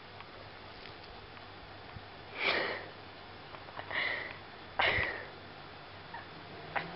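Three short sniffs from a pet, about a second to a second and a half apart.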